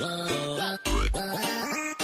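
Upbeat background music: short pitched notes in a quick, even rhythm, with a deep bass hit about a second in.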